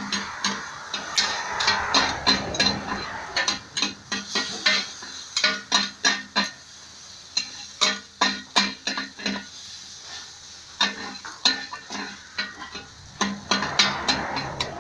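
Two long-handled metal ladles clanking and scraping rapidly and irregularly against a large wok while noodles, shrimp and egg stir-fry in it. A frying sizzle swells about a second in and again near the end.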